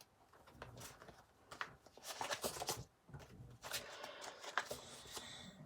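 Faint snoring sound effect: several slow, drawn-out breaths with short gaps between them.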